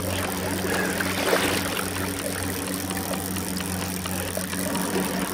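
Creek water rushing in an even hiss over a steady low hum, with a few faint ticks.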